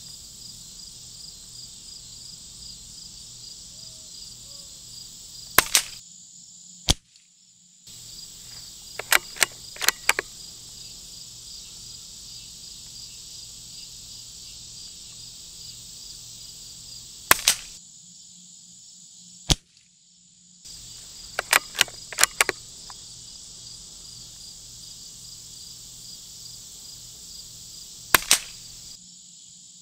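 Three suppressed shots from a Savage FVSR bolt-action .22 LR rifle firing CCI Standard Velocity 40-grain rounds, each a sharp short crack, about eleven seconds apart. Between the shots come quick clusters of clicks as the bolt is cycled. Crickets chirr steadily throughout.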